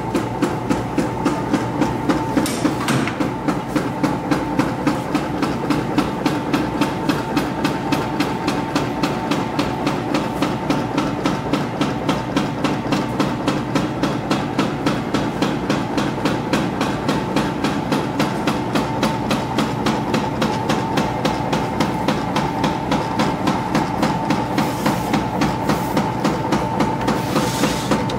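Yamato Bando Taro soba noodle machine switching on and running, with a steady whine under an even mechanical clacking about three times a second.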